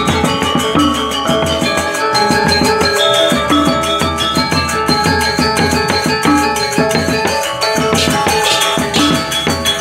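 Balinese gamelan gong ensemble playing a slow lelambatan piece (tabuh telu): bronze metallophones ring in dense interlocking strikes over beating kendang drums, with a couple of brighter crashes about eight seconds in.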